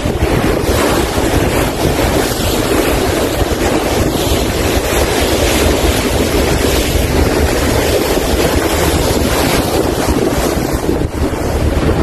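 Steady wind buffeting the microphone on a moving harbour ferry, over a constant rush of water and engine noise.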